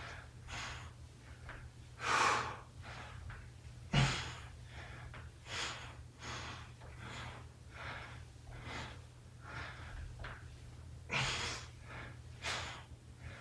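A man breathing hard from exertion during reverse crunches: short, forceful breaths through nose and mouth, about one to two a second, some much louder than others.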